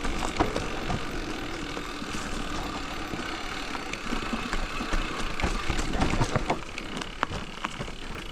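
Electric mountain bike riding down a trail: steady rolling tyre and wind noise with scattered knocks and clicks as it goes over bumps.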